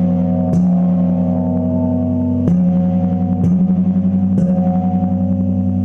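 A large temple gong struck four times at uneven intervals. Each stroke rings on into a low, steady hum that wavers in loudness.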